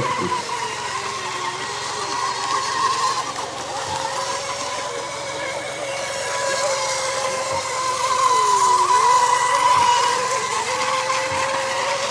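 High-pitched whine of electric Mini Mono class RC racing boats running flat out across the water, over a hiss of spray. The whine gets louder about eight seconds in as a boat comes closer, and its pitch dips briefly near nine seconds.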